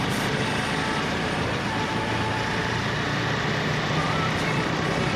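Motorcycle engine running steadily while riding at road speed, with wind and tyre noise.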